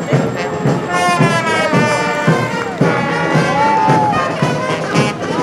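Brass music playing, with held and gliding notes.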